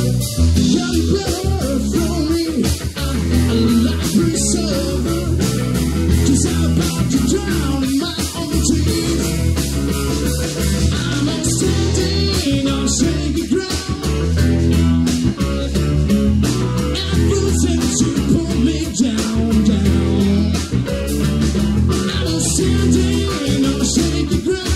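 Live blues-rock band playing: electric guitar, keyboard, bass and drum kit, with a steady drum beat.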